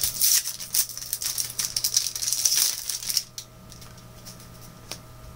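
Foil Match Attax card-packet wrapper crinkling as it is crumpled and handled: dense crackling for about three seconds, then quieter with a few light clicks.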